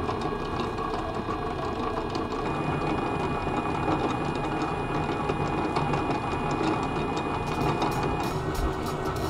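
Teddy Varimixer AR5 stand mixer running steadily, its motor and gearing whirring as the beater works flour into dough in the steel bowl. The running note shifts a little near the end.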